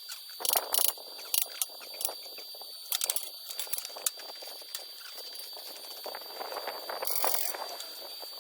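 A few irregular knocks and clatters, scattered and uneven.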